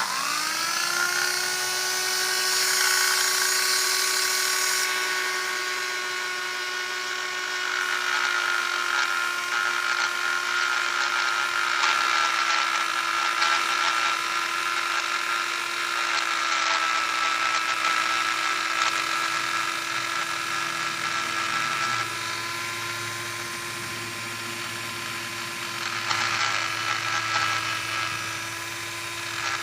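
Dremel rotary tool switching on and spinning up, then running steadily at high speed with a high whine while it sands down the rough edges of a coaster. The pitch and loudness shift a little as the bit presses into the work.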